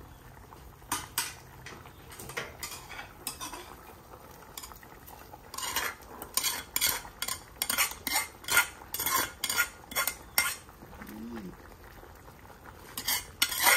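Metal ladle scraping and clanking against aluminium cookware as fried pork is scraped from a pan into a pot. It comes in irregular bursts of clatter, busiest from about six to ten seconds in and again near the end.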